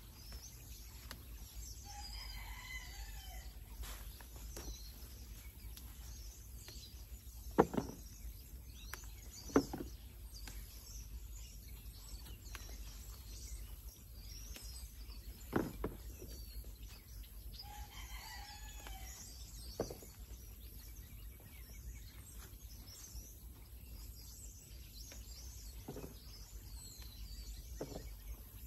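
A rooster crows twice, about two seconds in and again around eighteen seconds, each crow rising and lasting over a second. Several sharp clicks close by are the loudest sounds, over a steady background of faint bird and insect chirping.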